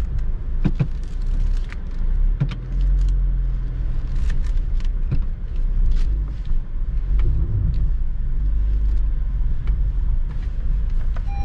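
Car driving slowly on a rough rural road: a steady low rumble of engine and tyres, with scattered clicks and knocks throughout.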